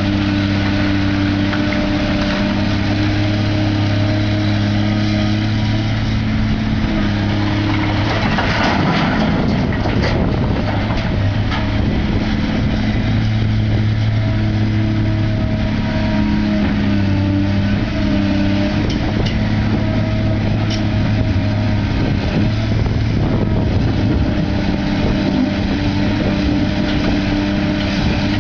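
Heavy diesel engine of construction machinery running steadily with a low hum, with a rougher, noisier stretch about nine seconds in.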